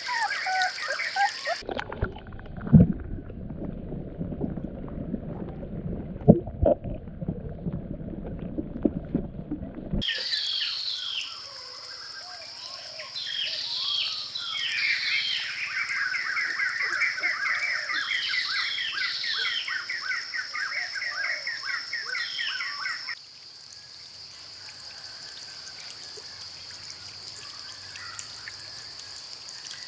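A muffled low noise with two sharp knocks for about eight seconds, then birds calling, with a fast repeated trill, over a steady high-pitched drone. The drone carries on alone and quieter for the last few seconds.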